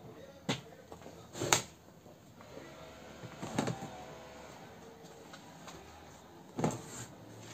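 A few scattered knocks and taps, four in all, the loudest about one and a half seconds in, over a faint quiet background.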